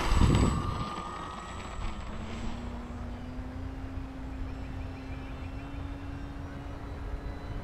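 Electric motor and propeller of an RC P-51 Mustang in flight, heard from a camera mounted under the plane: a steady motor tone over wind rush, with a brief loud low rush of wind just after the start.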